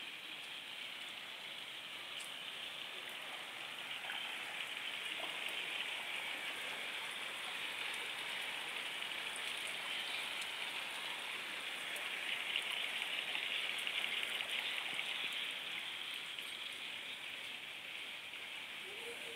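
Steady rain hiss with no other distinct sounds, a little louder for a few seconds past the middle.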